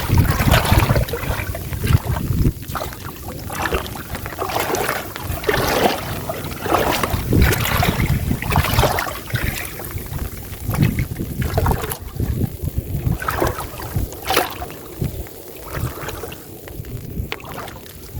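Water splashing and sloshing in uneven surges, as when people wade and work a net in shallow floodwater.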